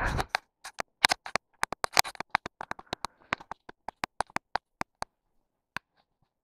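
Footsteps crunching through dry, frozen snow: a run of sharp, irregular crackles that thins out about five seconds in.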